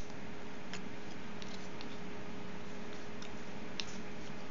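A few sharp, irregular clicks from a Ford ignition lock cylinder's core being turned and handled in its housing, over a steady background hiss with a low hum.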